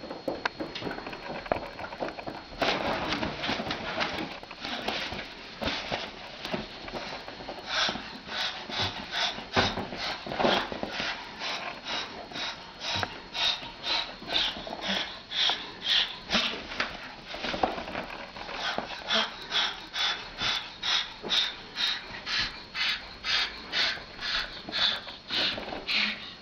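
An animal huffing in short breathy puffs, irregular at first and then settling into a steady rhythm of about two a second.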